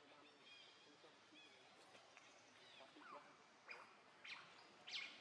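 Faint high-pitched animal chirps and squeaks, with a few short calls sweeping down in pitch in the second half.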